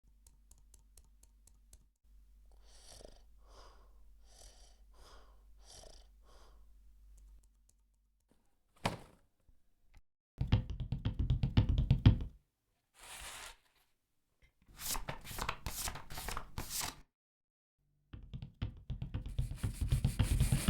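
Foley sound effects: faint ticking at first, then five soft, evenly spaced sounds a little under a second apart, then several loud bursts of rapid knocking and clattering.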